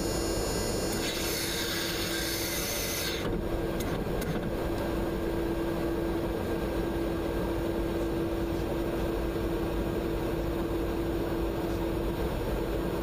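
Steady in-flight noise inside a refuelling tanker aircraft: a constant rush of airflow and engine drone with a steady hum running through it. The hiss grows brighter for a couple of seconds about a second in.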